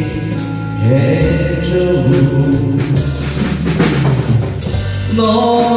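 Live band playing a slow Korean ballad: a sung line ends about a second in, then a drum fill on the drum kit, a run of quick hits over held keyboard chords, before the chords settle again near the end.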